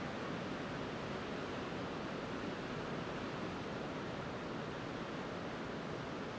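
Steady, even wash of ocean surf breaking along the point.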